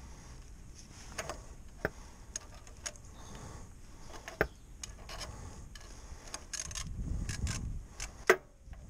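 Strap-type oil filter wrench being worked around the oil filter: scattered clicks and light knocks with some rubbing, and one sharper knock near the end.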